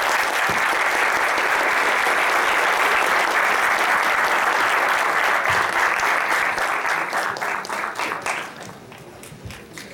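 Audience applauding, full and steady for about seven seconds, then thinning to scattered claps and dying away.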